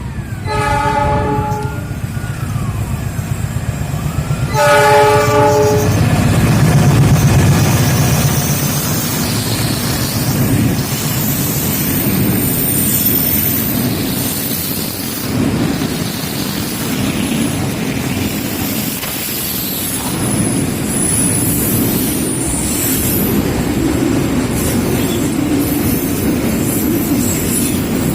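Train horn sounds two short blasts, one at the start and one about five seconds in. Then comes the steady rumble and wheel clatter of a freight train of tank wagons passing close by, loudest just after the second blast.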